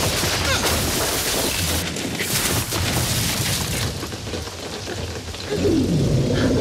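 Film soundtrack of a heavy rainstorm: steady downpour with booming crashes as a wooden shelter is smashed apart. It eases for a moment, then near the end a low sound slides down in pitch and the din swells again.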